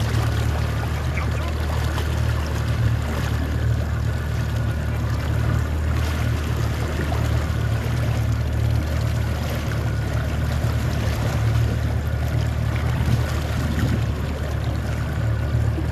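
Boat motor running steadily under way, a constant low drone, with water rushing and splashing past the hull.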